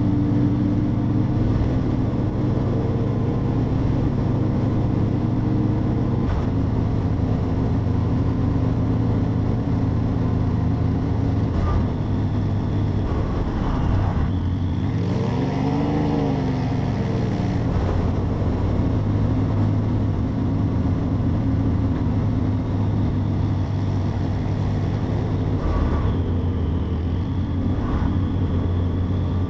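Motorcycle engine running steadily at cruising speed, with wind noise; its pitch steps down about six seconds in. An oncoming vehicle passes about halfway through.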